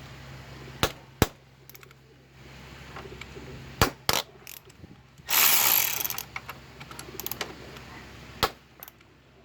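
A 3/8-inch ratchet driving a 6 mm Allen bit on a motorcycle's front fork pinch bolts: scattered sharp metal clicks, and a loud burst lasting about a second about five seconds in.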